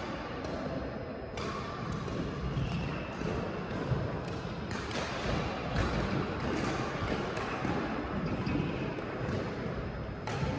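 Badminton rackets striking a shuttlecock in rallies: repeated sharp hits at irregular intervals, roughly one or two a second, over the steady hubbub of a sports hall.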